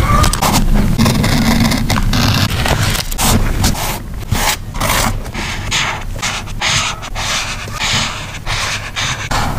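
Paper and sticker sheets being handled, rustling and scraping in quick, irregular strokes.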